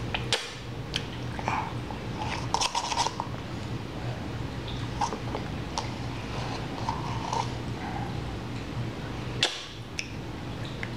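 A toddler eating with a plastic spoon from a plastic cup: scattered sharp clicks of the spoon knocking the cup and lid, a cluster of them a few seconds in and another near the end, with small smacking mouth sounds between.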